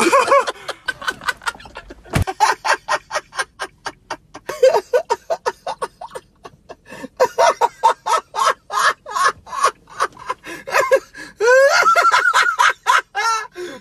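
A man laughing hysterically in long runs of rapid, breathy 'ha' pulses with gasping breaths between them, rising near the end into a long, high-pitched drawn-out laugh.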